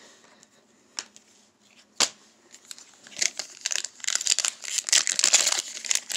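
A foil trading-card pack being torn open, its wrapper crinkling and crackling more and more densely from about halfway in. Two sharp taps come before it, about one and two seconds in.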